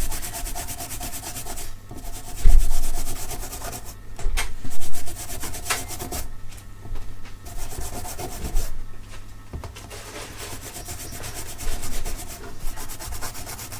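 A brush scrubbing a radio circuit board in uneven strokes with short pauses, cleaning old solder flux off after resoldering. Two louder bumps come about two and a half and five seconds in.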